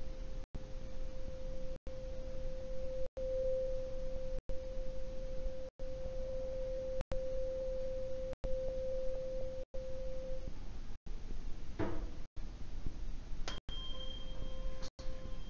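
A 523.2 Hz tuning fork rings in one steady pure tone over the mouth of a resonance tube, swelling louder at times as the air column nears its first resonance point, then fading out. Near the end the fork is knocked and struck again, giving a brief higher ring over the restarted tone. The sound is cut by short regular gaps about every second and a half.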